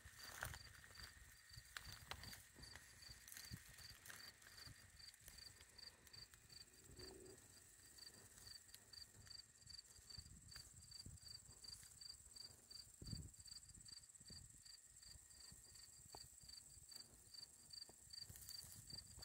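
Faint cricket chirping steadily, about three chirps a second, with a fainter continuous high insect trill behind it and a low rumble.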